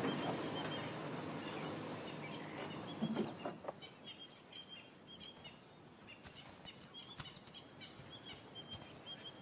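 Bush ambience of birds calling: repeated short, high chirps with a few quick downward-sweeping calls, over a low rumble that fades out in the first three seconds. A couple of faint sharp clicks come near the middle.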